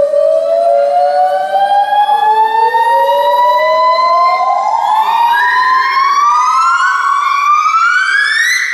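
Gibbons calling: several voices overlap in long whooping notes that glide upward in pitch. About halfway through, the notes become shorter, quicker and higher, the rising build-up of a gibbon great call.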